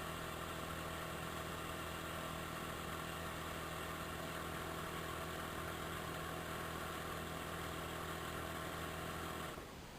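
1994 Cadillac DeVille's rear air-suspension compressor running with a steady hum as it pumps air into the new air shocks, cutting off about half a second before the end.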